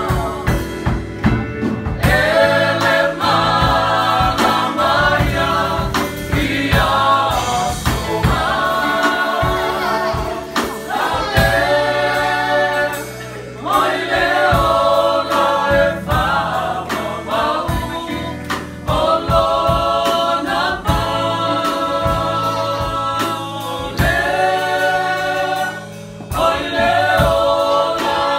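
A small mixed group of men and women singing a Samoan praise song together in harmony, in phrases of a few seconds with brief breaks between them.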